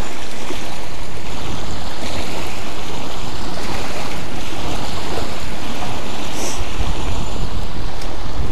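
Small waves lapping and washing onto a rocky lakeshore, with wind gusting on the microphone; the wind rumble grows heavier about seven seconds in.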